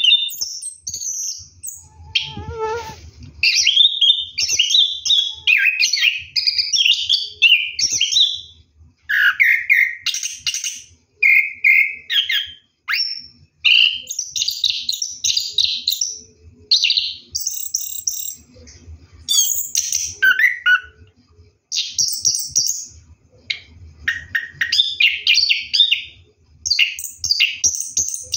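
Orange-headed thrush (anis kembang) singing a long run of rapid, varied high phrases with only short breaks, the continuous rolling ('ngeroll') delivery that bird keepers prize.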